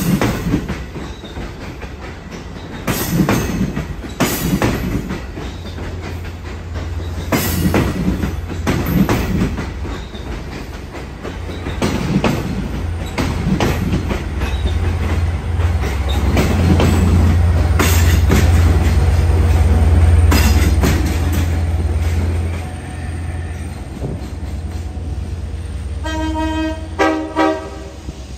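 Long Island Rail Road bilevel passenger train passing at speed, its wheels clacking irregularly over rail joints and switches, with a deep rumble that swells to its loudest in the middle and then falls away. Near the end, a locomotive horn sounds two short blasts.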